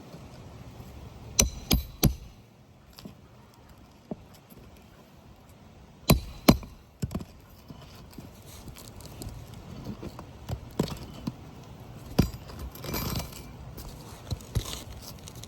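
Hammer striking a roof snake to drive shingle nails back into place: three quick metallic knocks about a second and a half in, two more around six seconds, then single knocks, with lighter metal clinks and handling between.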